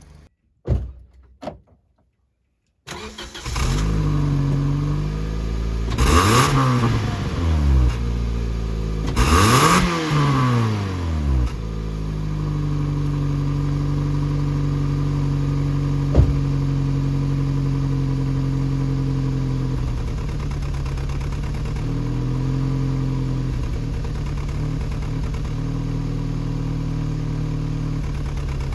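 The Scion xA's 1.5 L 1NZ-FE four-cylinder engine starting about three seconds in, revved up twice, then settling into a steady idle, with one sharp click partway through.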